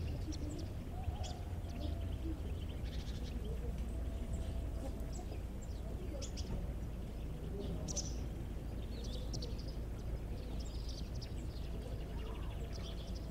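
Domestic chicks peeping in short, high chirps scattered throughout, with a few lower drawn-out calls, over a steady low background rumble.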